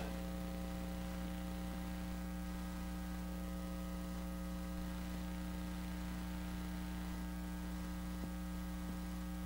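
Steady low electrical mains hum from the church's sound system, unchanging, with a faint hiss behind it.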